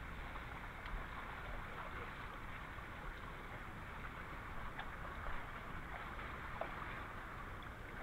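Water splashing and sloshing around the feet of several people wading through a shallow creek, over the creek's steady rush, with a few faint small clicks.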